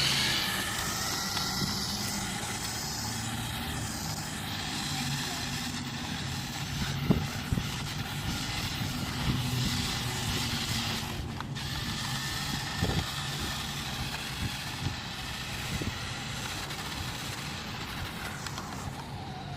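A toy remote-control Jeep's small electric motor and gears whining as it drives, the pitch rising and falling as the throttle changes, with a few light knocks.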